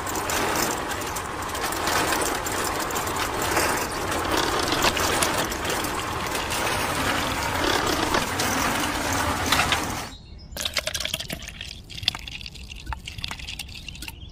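Miniature DIY cement mixer running, its drum churning a wet cement-and-sand mix with a steady rough noise and many small clicks. It cuts off abruptly about ten seconds in, leaving quieter scattered clicks and scrapes.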